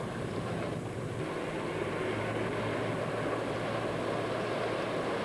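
Motorboat engine running steadily: a constant low hum under a wash of noise.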